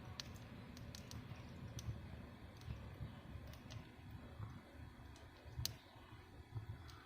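Fire burning in a fireplace: scattered sharp crackles and pops over a low, uneven rumble, with one louder pop late on.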